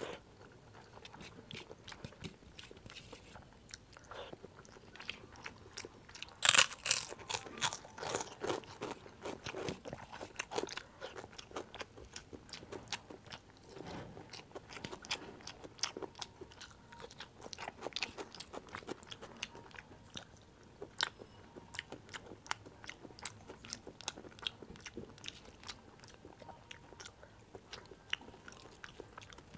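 Close-miked chewing and wet mouth sounds of someone eating rice and curry by hand, with many small clicks. A burst of loud crunching about six and a half seconds in is the loudest part.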